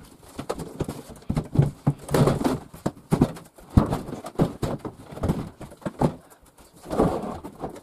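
Irregular wooden knocks, rattles and scrapes of a louvred cupboard door being handled and fitted against a wooden cupboard.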